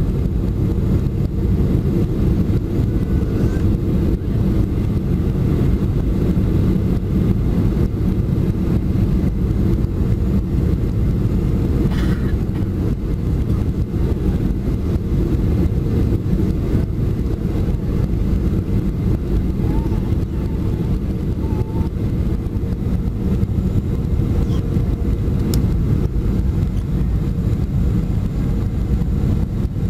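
Steady low cabin noise of a Boeing 737-400 in flight, from its CFM56-3 turbofan engines and the rush of air over the airframe, heard from a window seat beside the wing during descent to landing.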